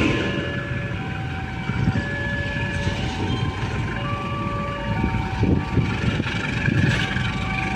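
Steady low rumble of an approaching diesel locomotive and engines waiting at the crossing. Over it a level-crossing alarm plays a repeating sequence of electronic chime tones that step in pitch about every half second, warning of the oncoming train.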